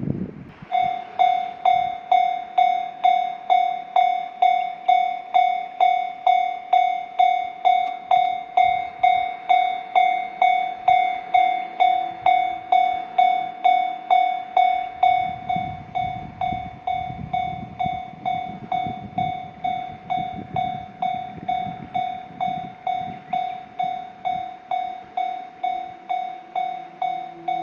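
A Japanese railroad crossing warning bell starts about a second in and dings steadily at about two strokes a second. A low rumble joins about halfway through.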